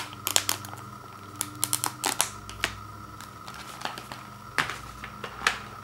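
Plastic microwavable rice pouch crinkling and crackling in the hands as its top is torn open, in scattered clusters of sharp crackles.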